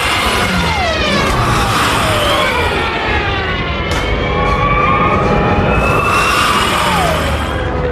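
Junkers Ju 87 Stuka dive bombers' wind-driven sirens wailing over the rumble of their engines. Several whining pitches glide up and down at once, and a few drop sharply as planes dive past.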